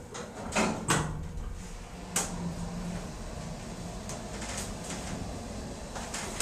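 Otis elevator's sliding car doors closing with two sharp thumps about half a second apart, then a single clunk about two seconds in and a steady low hum as the car sits ready to move.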